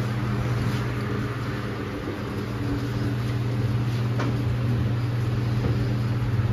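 Steady low hum and rushing air of ventilation fans, with a faint click about four seconds in.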